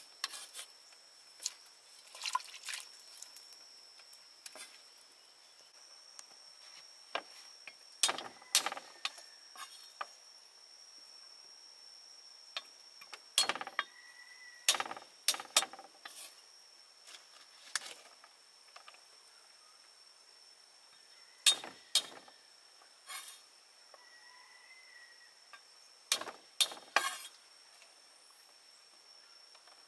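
Kitchen utensils clinking and knocking against pots and dishes at irregular intervals, over a steady high insect drone.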